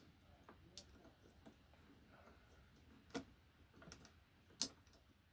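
A few small, sharp clicks and snaps from hand work on electrical wiring and connectors, with two louder clicks about three and four and a half seconds in.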